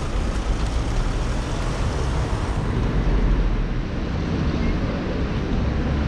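Steady wind rumble on an action camera's microphone over the hiss of traffic on wet city streets.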